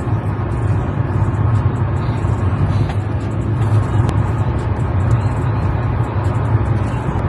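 Steady low rumble inside a car's cabin: engine and road noise.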